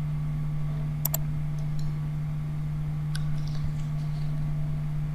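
Steady low electrical hum from the recording setup, with a few sharp computer mouse clicks, the clearest about a second in and another around three seconds.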